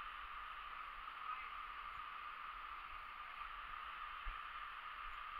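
Small stream's water running steadily, an even rushing hiss.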